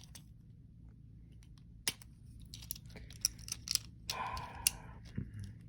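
Small plastic clicks and taps of LEGO bricks being handled and pressed together: one sharp click about two seconds in, then a quicker run of clicks with a brief rustle in the second half.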